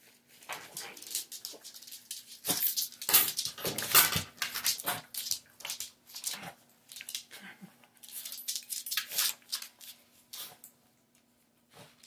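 Small dog's claws clicking and scrabbling on a wooden floor in quick, irregular bursts as it jumps about and has a harness put on.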